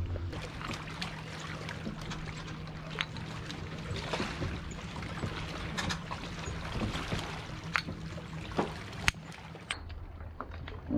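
Small waves lapping on a rocky lakeshore under a steady low hum, broken by a few sharp wooden clacks from a kendama's ball and cups.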